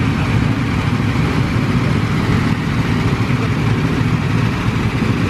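Go-kart engines running with a steady, loud mechanical drone.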